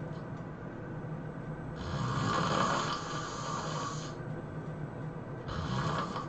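A person snoring heavily in sleep: one long snore about two seconds in, lasting a little over two seconds, and the next snore starting near the end.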